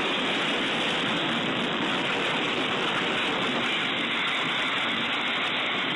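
Steady, loud rushing noise with no distinct events, dull and muffled like low-quality video audio.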